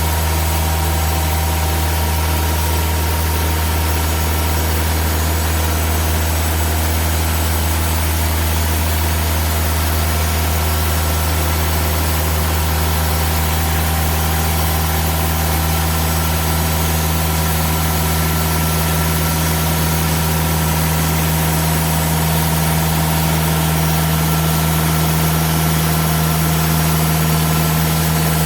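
TimberKing 2000 portable bandsaw mill's engine running at a steady pitch, a constant low hum.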